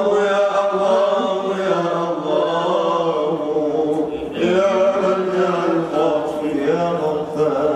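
A man's solo voice chanting an Arabic devotional poem into a microphone, unaccompanied, in long drawn-out notes that bend up and down. He takes a short break about four seconds in and starts the next phrase.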